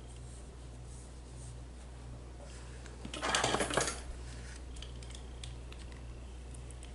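A short rattling clatter of small hard objects, a quick run of clicks lasting under a second, about three seconds in, over a steady low hum.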